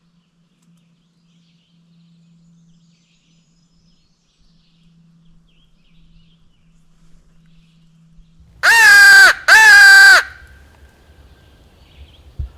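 Crow locator call blown twice: two loud, harsh caws in quick succession about eight and a half seconds in, each dropping slightly in pitch. It is blown to make a distant gobbler answer, so the hunters can pinpoint him.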